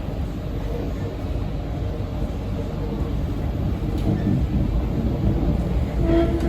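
Inside a C151B metro train car while it runs: a steady low rumble from the wheels and traction gear, with faint humming tones that grow louder near the end.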